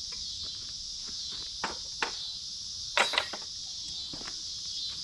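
Crickets chirring steadily, with a few sharp clicks and clanks over it, the loudest a quick double clank about three seconds in.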